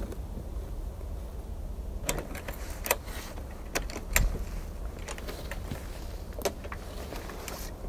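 Clicks and knocks of a wooden plank door being unlatched and pulled open, about seven sharp taps spread over the last six seconds, the loudest about four seconds in, over a steady low rumble.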